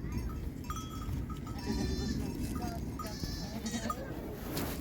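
A flock of goats and sheep bleating: several short, high-pitched calls over a steady low rumble.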